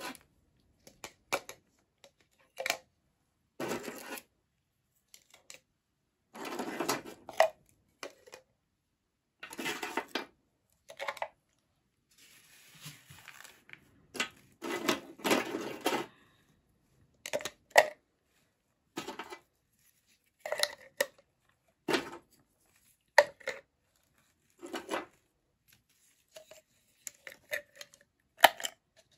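Hard pieces of peanut brittle clicking and clattering as they are dropped into a plastic tub, at irregular intervals, with the baking paper rustling as pieces are picked up.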